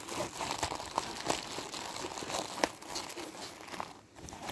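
Plastic packets and the clear plastic pouch of a small first aid kit crinkling and rustling as they are handled, with scattered small clicks. There is a brief lull about four seconds in.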